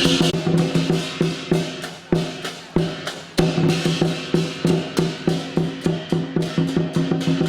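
Lion dance percussion: a drum beaten in a fast, even rhythm with steadily ringing metal percussion underneath. The beating thins to a few sparse strikes about two seconds in, then picks back up about three and a half seconds in.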